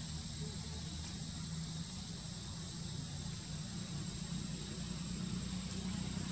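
Steady low engine rumble with a thin, steady high whine above it.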